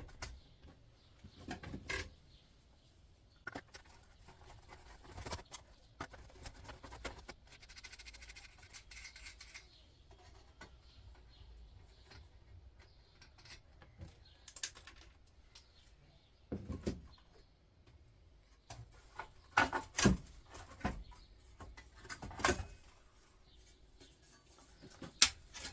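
Tools and metal parts of an electric hob clicking and knocking at intervals as bolts are undone on its steel plate, with a brief whirring about eight seconds in. The sharpest metal knocks come in the second half, the loudest about twenty seconds in.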